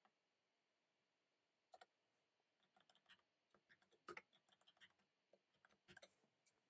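Near silence broken by a few faint computer keyboard clicks as a short bit of text is typed, the loudest cluster about four seconds in.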